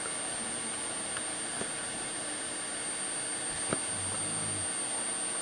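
Steady whir of the cooling fan on the bench FET drive electronics, with a thin, steady high-pitched whine from the 8.75 kHz pulse drive of the water fuel cell's transformer and coil. There is one light click a little past the middle.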